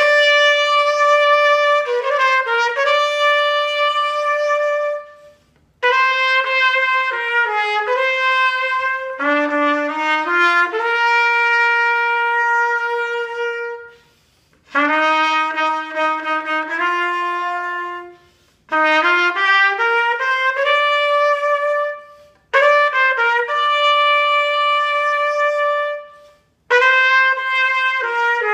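Vintage German-made Wohlrab trumpet played solo and unaccompanied: a melody of held and stepping notes in several phrases, broken by short pauses every four to eight seconds.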